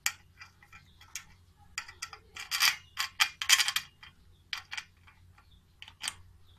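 Backdrop stand parts clicking and rattling as a metal thumb screw is fitted into the joint between two stand tubes, with a burst of louder clattering about two and a half seconds in.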